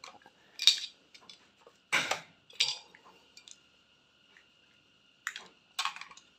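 About five sharp clinks and knocks of hard tools being handled, spread out over a few seconds, over a faint steady high whine.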